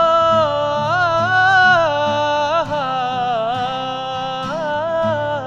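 Music: a wordless vocal melody line, held and wavering with gliding turns, over a steady strummed accompaniment.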